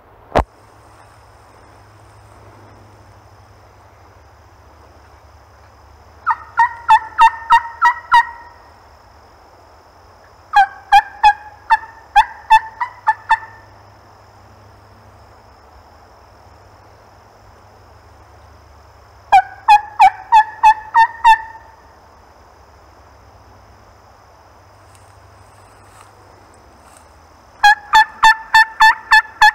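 Hen-turkey yelps made on a hunter's turkey call, in four runs of evenly spaced notes about four a second, the last run starting near the end and running longer; calling meant to draw a gobble from a tom. A single sharp click comes just after the start.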